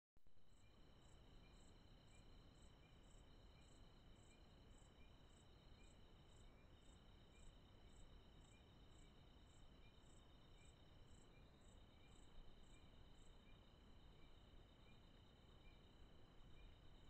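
Faint night insects: a steady high trill with a higher chirp repeating about twice a second, over a low hiss.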